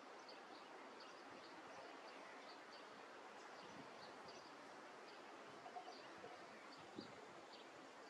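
Faint outdoor ambience: a steady hiss with short, high chirps scattered through it, a few each second. Two soft taps come near the end.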